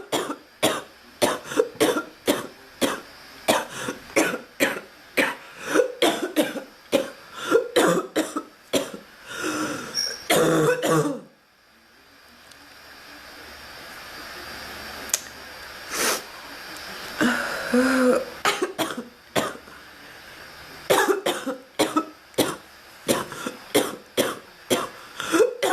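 A woman coughing over and over in long fits of short coughs, several a second, with some throat clearing; the persistent cough of an illness she has not shaken off. The coughing breaks off abruptly about eleven seconds in, and after a few quieter seconds it starts again in fits.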